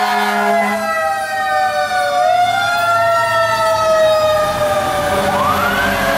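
Fire engine sirens wailing as the trucks pass. One siren slides slowly down in pitch, while another rises about two seconds in and again near the end, falling away slowly each time. A low truck-engine rumble runs underneath.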